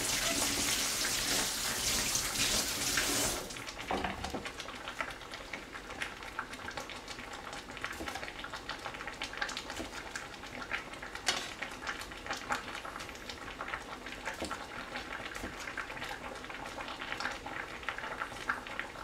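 Kitchen tap running, shut off about three and a half seconds in; then a chef's knife cutting cherry tomatoes on a cutting board in light, irregular taps and clicks over a faint steady background hiss.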